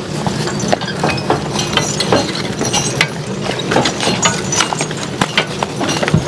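Horse-drawn cart rattling and jolting over a rough woods road, with a clatter of irregular knocks and clinks from the cart and harness over a steady low rumble. The draft horses' hooves clop along with it.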